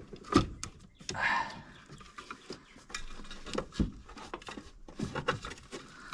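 Scattered clicks and knocks, with a brief scrape about a second in, of a heater core and its housing parts being handled and pushed into place.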